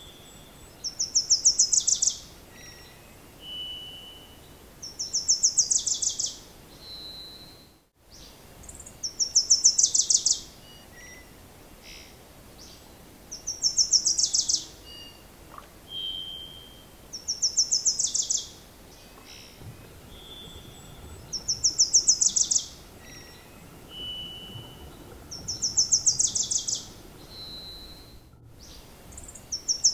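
A songbird singing the same phrase over and over: a fast, high trill lasting about a second, repeated roughly every four seconds, with short whistled notes in between.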